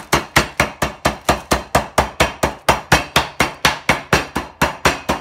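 Wooden rolling pin beating slices of bread through their plastic packet against a granite worktop to flatten them: a steady run of sharp knocks, about four a second.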